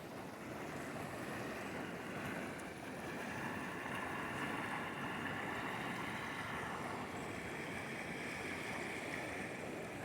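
A rain-swollen river running high and fast: a steady, even rush of water.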